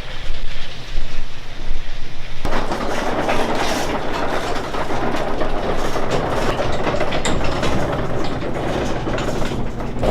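Vehicle driving in a storm: a low steady rumble, then a loud rushing noise of wind and rain comes in suddenly about two and a half seconds in and keeps on.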